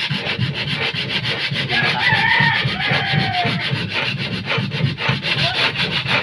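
Sandpaper rubbed by hand in rapid, even back-and-forth strokes over the epoxy-coated plywood hull of a wooden boat, scuffing down an epoxy coat that is too thick before painting.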